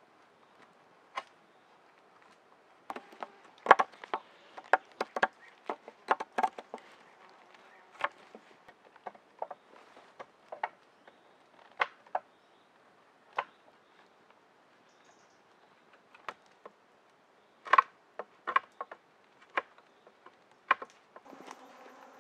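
A knife cutting into a wooden pole: irregular sharp clicks and knocks, in two busy clusters, as notches are carved in the pole. Near the end an insect starts buzzing close by.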